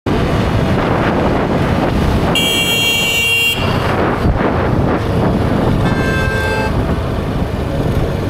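Rush of wind and engine noise from a motorcycle on the move, with a vehicle horn blaring for about a second around two and a half seconds in. A second, fainter honk follows about six seconds in.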